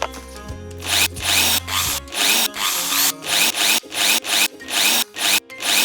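Battery-powered toy drill whirring in short, repeated bursts, about two a second, as it turns a toy bolt.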